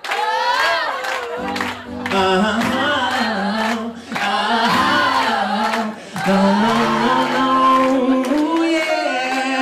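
A concert crowd singing together, many voices at once, after a brief drop at the very start. Low held notes run underneath for most of it.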